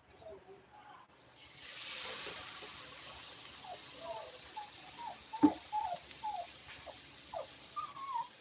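Hotcake batter hitting hot oil in a nonstick frying pan and sizzling steadily, starting about a second in. Short high squeaks come and go over the sizzle, with one sharp knock about halfway through.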